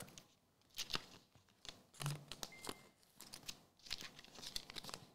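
Faint rustling and crinkling of trading cards and their wrappers being handled, with scattered soft clicks as cards are slid and set down on a mat.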